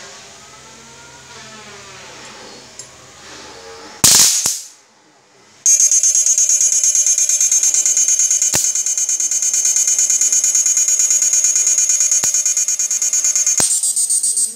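A shock-fishing inverter's output arcing across an aluminium heatsink: a loud sharp crack about four seconds in, then a loud, high-pitched buzz that pulses rapidly, which cuts off suddenly at the end.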